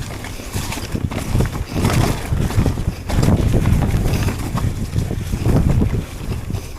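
Wind buffeting the microphone of a camera on a mountain bike riding downhill, a low rumble that rises and falls in gusts, with scattered knocks and rattles from the bike over rough ground.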